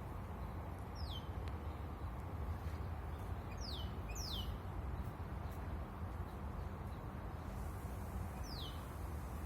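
A songbird giving short, high chirps that sweep sharply downward in pitch: one about a second in, two in quick succession around four seconds in, and one more near the end. A steady low rumble runs underneath.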